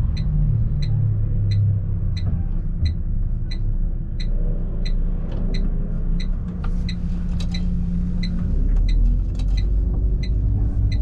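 2005 Volvo B12B coach's 12-litre six-cylinder turbo diesel running at low speed, heard from the driver's seat, with the turn indicator ticking steadily about one and a half times a second.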